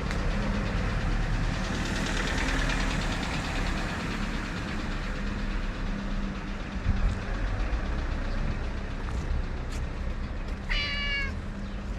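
A stray cat meows once near the end, a short call over a steady low mechanical hum.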